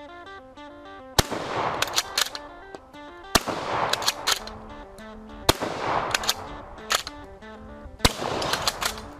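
Bolt-action shotgun fired four times, about two seconds apart, each shot echoing, with quick clicks of the bolt being worked between shots. Background music with held notes plays underneath.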